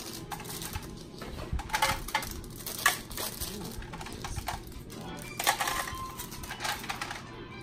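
Small plastic hair bobbles and clips clicking and clattering as they are dropped and sorted into clear plastic bins, in irregular clicks.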